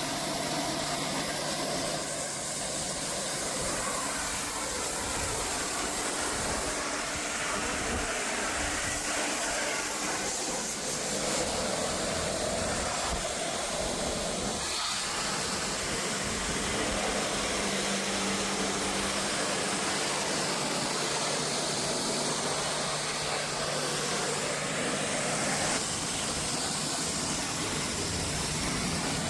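High-pressure washer spraying water onto a window air conditioner during a chemical wash: a steady hiss of spray over a low hum.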